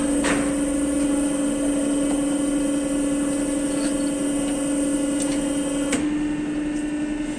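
Factory machine running with a steady electric hum, one pitch with overtones over a hiss. A click about six seconds in, after which the hum carries on slightly changed.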